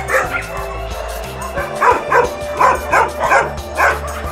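A dog barking repeatedly, about six sharp barks in quick succession starting about two seconds in, over steady background music.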